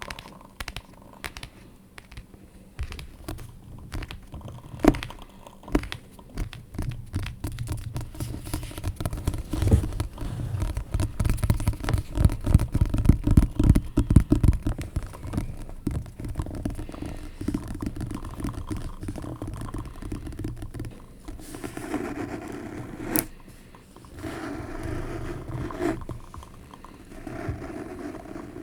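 ASMR tapping and scratching on objects close to the microphone: irregular taps, a louder stretch of dense scratching in the middle, and smoother rubbing strokes near the end.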